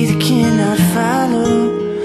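Background music: a wavering melody line over steady held low notes.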